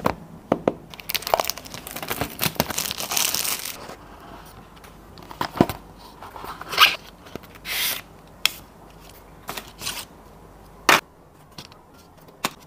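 Paper and cardboard phone packaging being torn open and handled: a dense tearing, crinkling stretch for the first few seconds. Then the box lid and cardboard inserts slide and scrape, with sharp taps and clicks, a loud one near the end.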